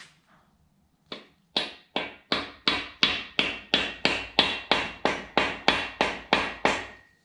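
Hammer tapping a Woodruff key down into the keyway on the nose of a Manley stroker crankshaft. There are about seventeen sharp taps, about three a second, and each one rings briefly.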